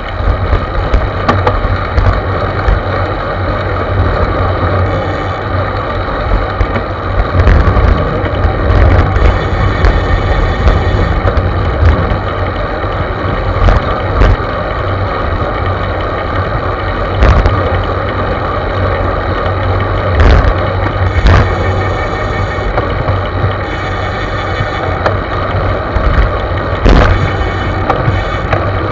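Wind rushing over a bicycle-mounted action camera's microphone and road rumble from riding along, a steady rush with irregular knocks and rattles every few seconds from bumps in the road.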